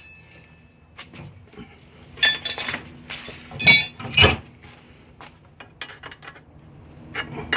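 Metal hand tools and a hose clamp clinking against a turbocharger's metal coolant-line fittings as the line is clamped and tightened. There are a few sharp, ringing clinks about two seconds in and a louder pair near the middle, with lighter ticks between them.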